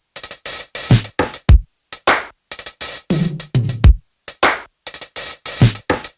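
Electronic dance track with a drum-machine beat: sharp hits and deep kick drums that drop in pitch, chopped by sudden short silences between them.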